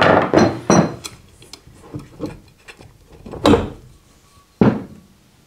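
Soft-faced mallet knocking on an electric motor's end housing to drive it apart: three quick knocks in the first second, then two more single knocks a few seconds later, with light metal clatter between as the housing is worked loose.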